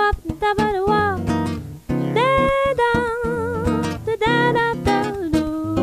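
A woman singing a melody with long held and gliding notes, accompanied by a plucked acoustic guitar.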